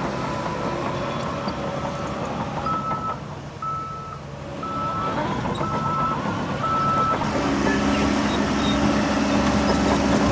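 Reversing alarm of a heavy earthmoving machine beeping five times, about once a second, over the steady running of diesel engines. The engine noise grows louder near the end.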